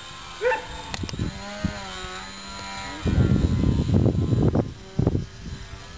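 Electric motor and propeller of a balsa 3D aerobatic RC airplane whining in flight overhead, its pitch gliding as the throttle changes. In the second half, loud rough rushing bursts of noise cover it for a couple of seconds.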